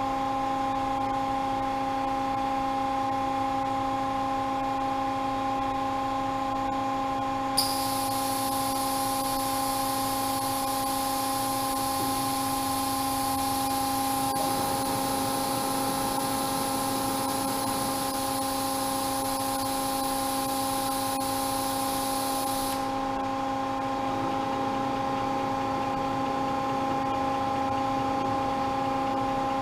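Clarke & Lewis CL-200 CNC tube bender's hydraulic power unit running, a steady hum with a whine made of several even tones. About eight seconds in a high hiss starts with a click, then cuts off sharply some fifteen seconds later.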